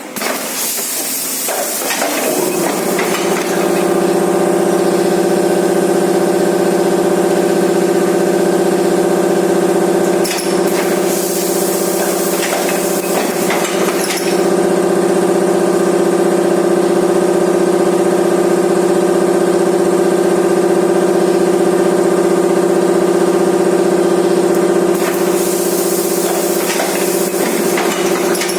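Case erector machine running: a steady motor hum that builds up over the first few seconds and then holds. Bursts of hissing come in near the start, about ten and fourteen seconds in, and again near the end.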